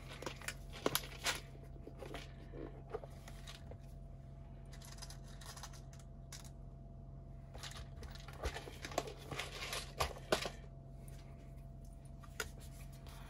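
Scattered light clicks and rustles of hands handling small screws and a threadlocker tube, bunched in the first few seconds and again around nine to ten seconds in, over a faint steady hum.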